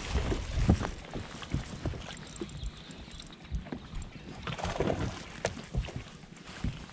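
Irregular knocks and thumps of handling in a bass fishing boat, with faint, indistinct voices about two-thirds of the way in.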